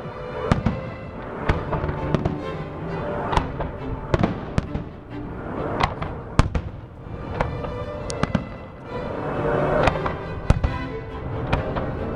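Fireworks salute: a string of sharp bangs from bursting shells at irregular intervals, roughly one or two a second, with music playing throughout.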